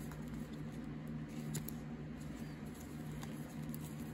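Trading cards, some in plastic sleeves, being thumbed through by hand: faint, irregular rustling and light clicks of card and plastic sliding past each other, over a steady low hum.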